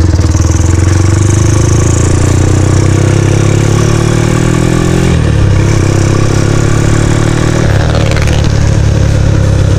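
Honda Tiger single-cylinder motorcycle fitted with an aftermarket racing muffler, running on the road. The engine note climbs slowly, falls sharply about five seconds in, holds, then falls again near the eighth second.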